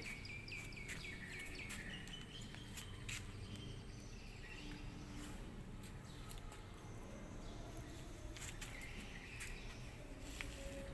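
High chirping calls, a quick run of about five a second in the first two seconds, then fainter scattered chirps, with sharp clicks over a low background rumble.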